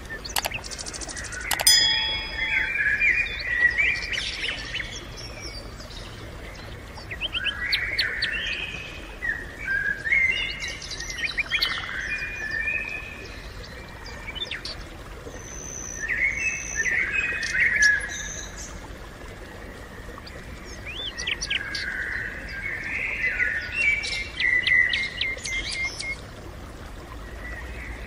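Songbird singing in warbling, chirping phrases that come every few seconds, over a faint low steady rumble. A couple of sharp clicks sound near the start.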